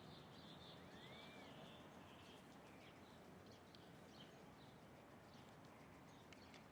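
Faint birdsong: many small birds chirping and twittering, with one clear whistled note rising and falling about a second in. The sound cuts off suddenly at the end.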